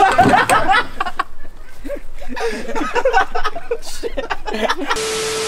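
People chuckling and laughing without words. About five seconds in, a steady tone over an even hiss takes over.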